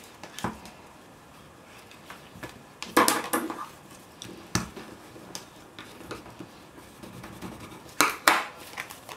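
Paper and cardstock pages being handled and pressed together on a tabletop: scattered sharp taps and clicks with soft paper rustling, loudest about three seconds in and twice near the end.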